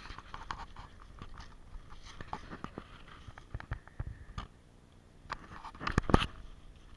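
Footsteps crunching through dry fallen leaves, mixed with scratchy handling noise on a hand-held action camera's plastic housing. A louder cluster of crunches comes about six seconds in.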